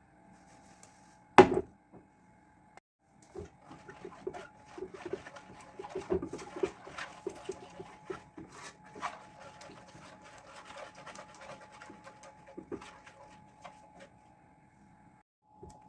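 Kitchen handling sounds. A sharp knock comes about a second and a half in, then a long run of quick scraping and clicking for about ten seconds, the sound of ingredients being worked in a bowl.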